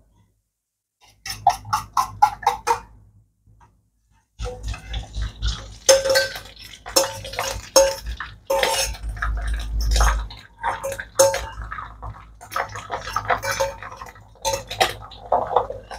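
A metal utensil clinking and scraping against a stainless steel bowl as beaten eggs are tipped out into a wok. A quick run of taps comes about a second in, then from about four seconds in repeated ringing scrapes and knocks over a steady hiss.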